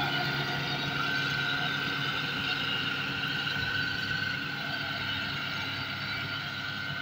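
Claas combine harvester working a grain crop, its engine and threshing machinery running steadily with a high whine over the drone. It grows slightly fainter as the machine moves away.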